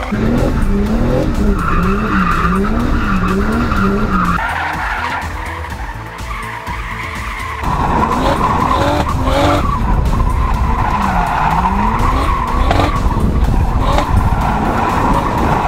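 Turbocharged BMW E46 325's M50B25 straight-six drifting: the engine revs rise and fall over and over under the throttle while the tyres squeal steadily. About halfway through, the sound switches to being heard from inside the car's cabin.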